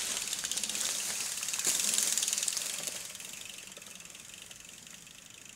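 Bicycle rear-hub freewheel clicking rapidly as the bike rolls off and coasts, loudest about two seconds in, then fading.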